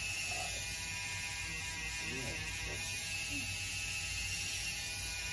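Tattoo machine buzzing steadily while tattooing skin.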